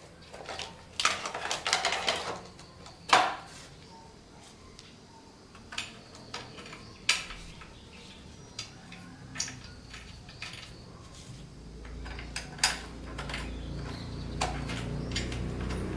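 Metal tools and engine parts clinking and knocking in scattered, irregular strikes, the loudest a few seconds in. Near the end a low rumble slowly grows louder.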